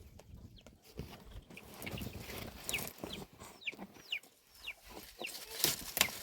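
Chickens clucking and peeping in a run of short falling chirps. A few sharp knocks come near the end.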